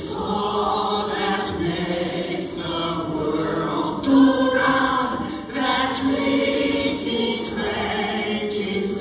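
A large mixed show choir singing in full voice.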